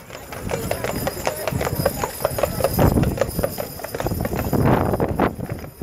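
A pair of Clydesdale heavy horses walking on tarmac, their hooves clip-clopping in many quick, overlapping hoofbeats as the pair passes close by.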